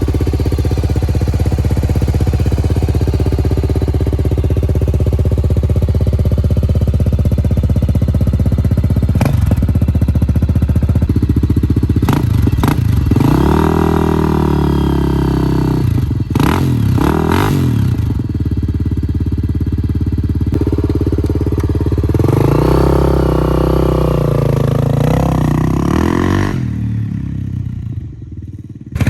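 2001 Honda XR400R's air-cooled single-cylinder four-stroke engine through an XR's Only aftermarket exhaust, idling steadily and then blipped several times, each rev rising and falling back to idle. The sound drops away near the end.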